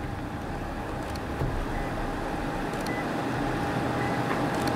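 Wind blowing over the microphone in an open field ahead of a supercell thunderstorm: a steady, low rumbling rush that slowly grows louder.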